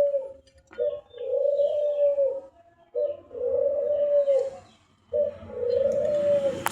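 A bird cooing: a short note followed by a long, steady, mid-pitched coo that dips at its end, repeated about every two seconds.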